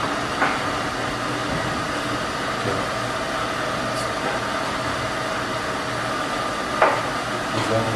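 Steady mechanical hum of machine-shop equipment or ventilation, with a couple of light clicks from the micrometer and measuring wires being handled, about half a second in and near the end.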